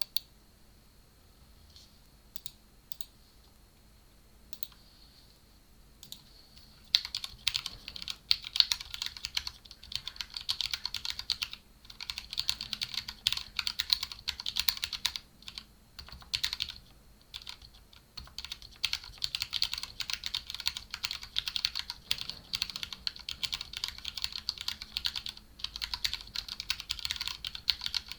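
Modded mechanical keyboard with linear Cherry Red switches, Cherry-profile PBT keycaps and a foam-dampened polycarbonate case and plate being typed on. A few scattered single keystrokes come first; then, about seven seconds in, fast continuous typing starts and runs with a few short pauses.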